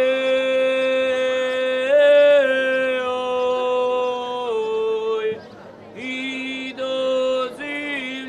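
A folk ensemble singing a Croatian folk song a cappella in long held notes. The pitch steps up about two seconds in and drops again around the middle, then after a short breath a new phrase begins.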